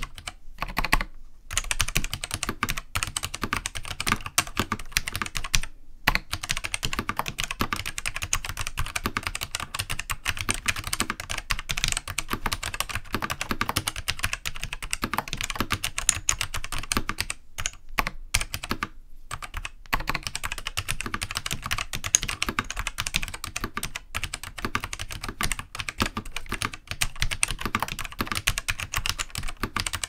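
Continuous fast typing on a Matias Dvorak Pro keyboard fitted with Matias Quiet Click tactile switches, Alps-style, whose slider dampeners have been removed. It is a dense stream of key clicks with a few brief pauses, about a second in, around six seconds in and twice near the middle.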